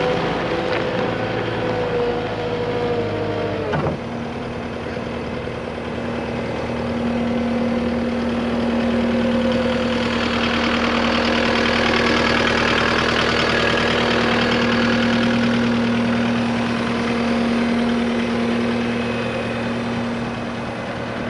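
Caterpillar skid steer's diesel engine running steadily, its note changing abruptly about four seconds in and then holding a steady hum.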